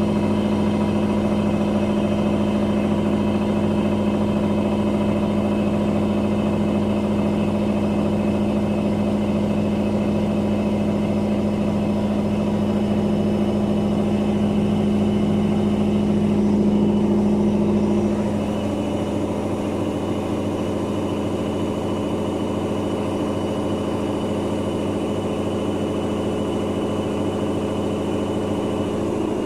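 Daewoo DWD-FT1013 front-loading washing machine running its 800 rpm spin with an unbalanced load: a steady motor hum with a regular low pulsing as the off-balance drum turns. About two-thirds of the way through the hum drops slightly and changes tone.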